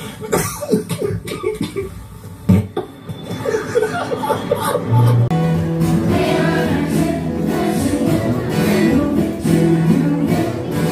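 Choppy, irregular sounds, then about five seconds in a live band's music takes over, with sustained low notes under a moving melody.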